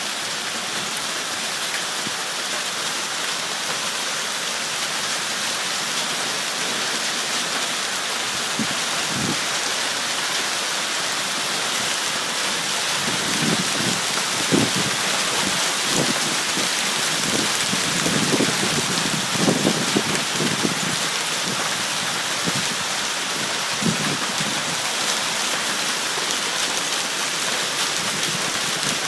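Hailstorm: hail falling hard with a dense, steady hiss of strikes, and a run of louder thuds in the middle where stones hit something close by.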